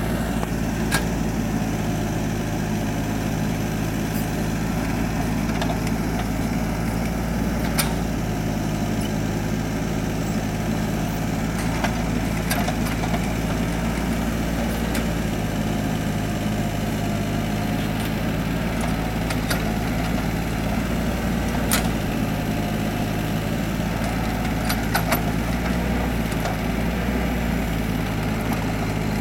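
Mini excavator's diesel engine running steadily while it digs hard laterite soil, with a few short sharp knocks spread through.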